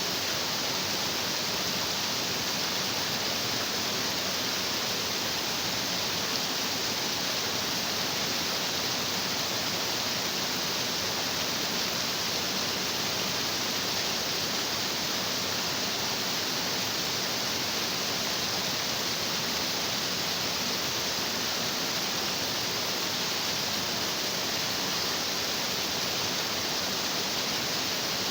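Stream water rushing and crashing over rocks in a steady, unbroken hiss, strongest in the upper range.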